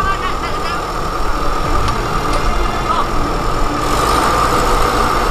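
Diesel engines of a crawler bulldozer and an excavator idling steadily, a low, even rumble with no revving.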